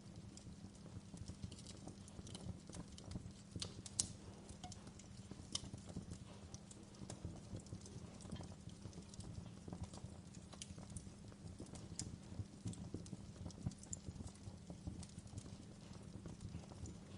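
Wood fire crackling: irregular snaps and pops over a low steady rumble, with one sharper pop about four seconds in.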